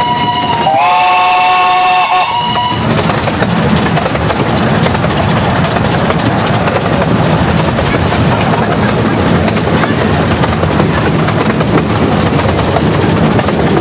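Narrow-gauge steam locomotive's whistle sounding a steady chord that dips briefly about a second in and stops at about three seconds, followed by the steady noise of the steam train running along the line.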